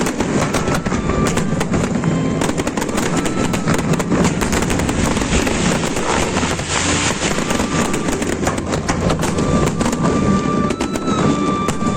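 Fireworks bursting in rapid succession, a dense continuous barrage of bangs and crackles.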